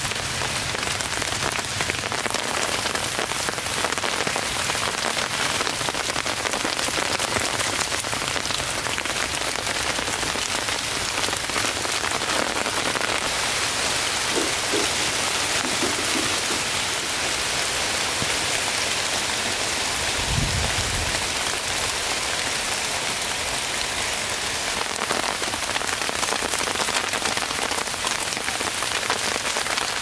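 Steady rain falling on a plastic-sheet shelter roof, an even hiss of drops hitting the taut plastic.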